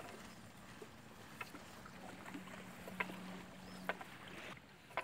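Faint outdoor wind and lake ambience with a low steady hum through the middle and a few light, sharp clicks about three and four seconds in, as a fishing net is shaken out and untangled by hand.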